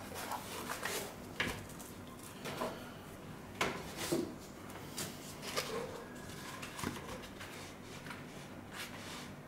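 Hands handling a car stereo head unit and its plastic wiring-harness plugs: irregular clicks, taps and rustles, with a few sharper knocks about a second and a half in and again around four seconds.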